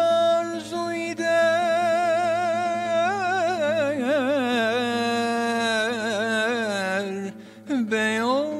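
A male voice singing a long ornamented phrase of Turkish classical music, with an oud accompanying. The singer holds notes with wide vibrato and adds quick turns; the phrase ends about seven seconds in and, after a short breath, a new phrase rises.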